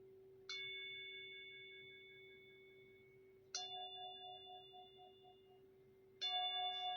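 Recorded temple gong sound played from a small nature-sound speaker: struck three times about three seconds apart, each stroke ringing on in several clear tones and slowly fading, over a steady low hum.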